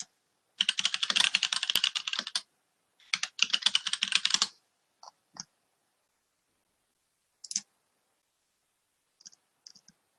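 Typing on a computer keyboard: two quick bursts of rapid keystrokes in the first few seconds, then a few single, spaced-out clicks.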